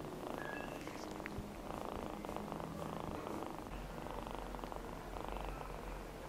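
Young ginger kitten purring steadily, the purr swelling and fading in waves with its breathing, while it is brushed with a soft toothbrush. The purring is a sign of contentment.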